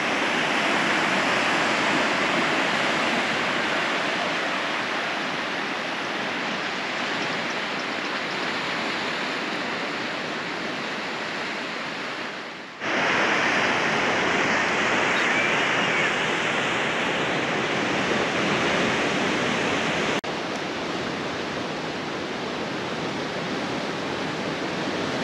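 Surf washing over a rocky shore, a steady rushing hiss that drops out for a moment about halfway through.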